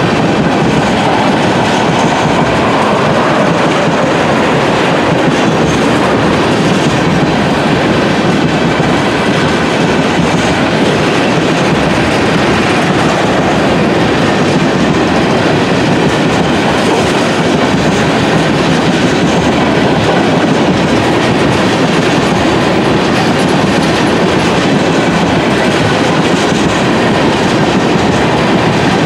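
Freight train of tank cars rolling past: steel wheels running on the rails in a loud, steady rumble.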